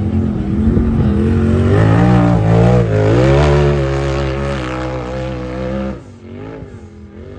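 Off-road race vehicle's engine revving hard, its pitch swinging up and down under throttle. About six seconds in the sound drops away sharply, leaving fainter revving.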